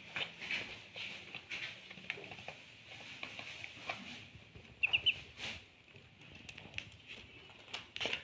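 A group of Muscovy ducklings peeping, thin high chirps overlapping, with a quick run of three sharp peeps about five seconds in. Scattered light taps and clicks of bills pecking at feed in a dish.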